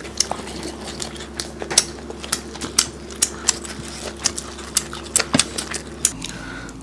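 Close-miked eating sounds of rice and curry being eaten by hand: irregular sharp clicks and smacks, a few each second, over a faint low hum.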